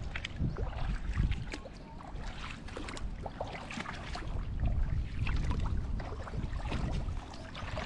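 Shallow seawater sloshing and splashing, with a low wind rumble on the microphone and scattered small clicks and crackles.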